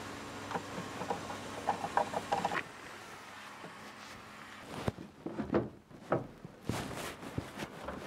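Screwdriver tightening the screws on the underside of a wall-mounted EV charger's case: a run of small clicks and ticks over a steady low hum. After an abrupt cut come scattered knocks and rustles of handling.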